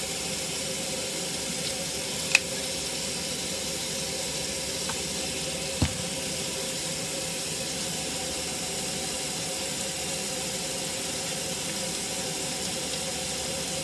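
Kitchen faucet running steadily into a stainless steel sink. A sharp click comes about two seconds in and a short knock near six seconds.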